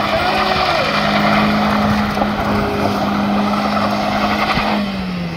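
A vehicle engine running hard at steady high revs under a loud rushing noise, its pitch sagging slightly near the end.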